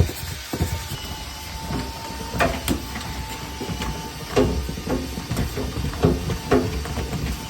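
A snake being worked through a dryer vent duct: a steady low rumble with irregular knocks and short ringing clanks as it strikes the pipe, coming more often from about two seconds in.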